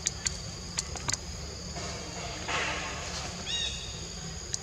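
Forest ambience with a steady high-pitched insect drone, a few sharp clicks in the first second, a rustle around the middle, and one short high chirp about three and a half seconds in.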